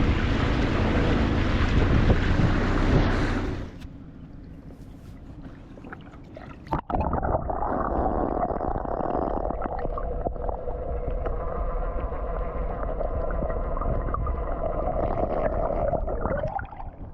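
Loud rushing wind and water noise for about the first three and a half seconds, then it turns muffled. After a sharp knock near seven seconds comes a steady, muffled hum with a few held tones and some gurgling, like the dinghy's outboard motor running heard with the high end cut off.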